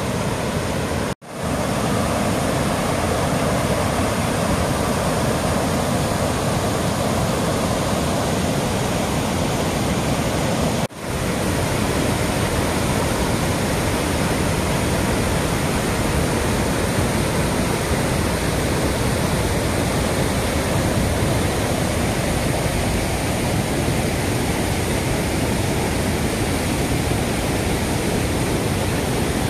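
Waterfall pouring over stepped rock ledges: a steady rush of falling water that cuts out briefly twice, about a second in and about eleven seconds in.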